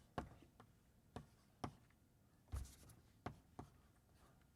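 Faint, irregular taps and short scrapes of chalk writing on a blackboard: about eight sharp strokes at uneven spacing, the strongest about two and a half seconds in.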